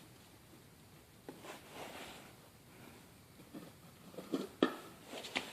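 Faint rubbing and handling noises from toothpaste being worked by finger onto a plastic headlight lens, with a few light clicks and knocks in the second half, the sharpest about four and a half seconds in.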